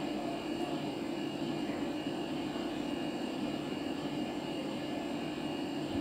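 Steady mechanical room hum with a faint high whine over it.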